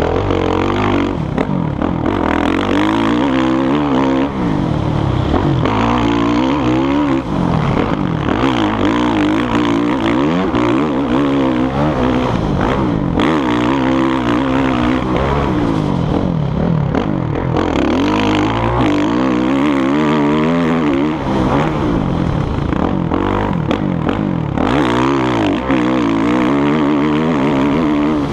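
Motocross dirt bike engine revving hard, its pitch climbing and dropping over and over as the rider accelerates, shifts and rolls off around the track, heard close from on the bike.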